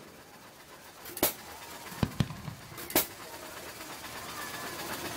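Aerial fireworks shells bursting overhead: four sharp bangs, one about a second in, two close together near two seconds, and one at three seconds.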